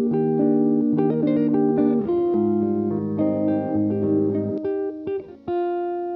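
Background music led by plucked guitar, with notes that change quickly and settle on a held chord near the end.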